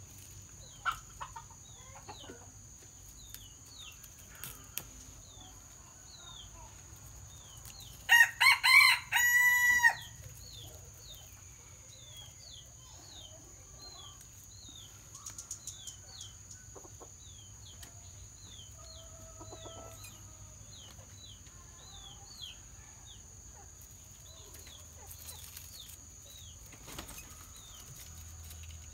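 A rooster crows once about eight seconds in, a loud cock-a-doodle-doo lasting about two seconds. Behind it, faint short high chirps repeat steadily, over a faint steady high whine and a few scattered light clicks.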